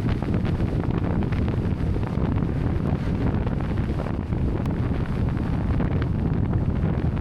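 Wind buffeting the microphone: a steady, low rumbling noise with no clear tones or strokes.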